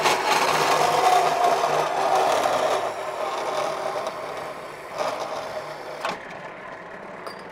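Power tool cutting through a steel exhaust tube bend, a steady cutting noise with a motor hum underneath, dying away over the last couple of seconds.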